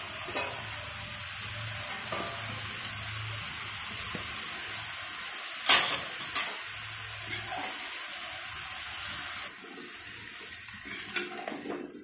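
Chopped mustard greens sizzling in a hot kadhai with a steady hiss, and one sharp metal clank about six seconds in. Near the end the hiss drops and a spatula scrapes and clinks against the pan as the greens are stirred.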